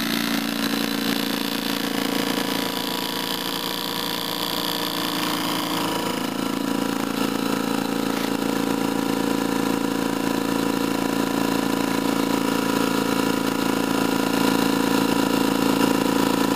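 An 8000 BTU air-conditioner compressor and a two-cylinder wobble-pump piston compressor run together in a steady mechanical hum. The wobble pump feeds the AC compressor's intake at about 25 psi while pressure builds in an air rifle's reservoir. A high whine drops out about six seconds in, and the sound grows slightly louder toward the end.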